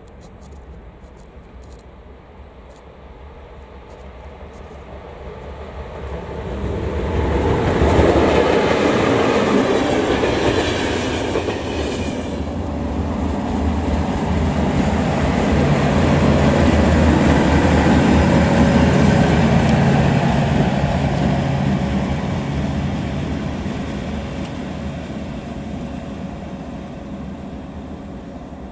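Romanian 060-EA-type electric locomotive passing close by on the track: rumble of wheels on rails swelling to a peak about eight seconds in, dipping briefly, then rising again with a steady hum before fading away.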